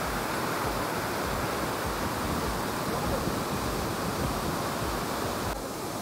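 Steady rushing of a large waterfall's falling water, with some wind buffeting the microphone.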